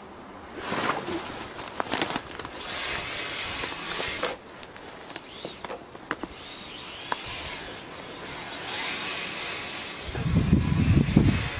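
Brushless electric motors of a radio-controlled Blizzard SR snowcat whining as it drives, the pitch rising and falling with the throttle, with scattered sharp clicks. A louder low noise comes in near the end.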